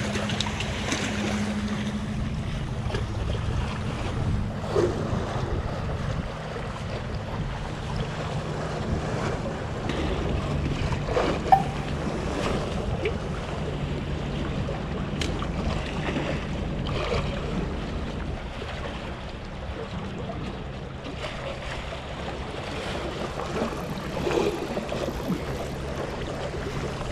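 Sea waves washing and splashing against the concrete tetrapods of a breakwater, with wind buffeting the microphone and a steady low drone underneath. A single sharp click stands out a little before halfway.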